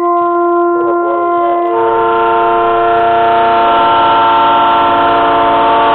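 Train horn sounding one long, loud blast, a chord of several steady notes, with more notes joining in about two seconds in.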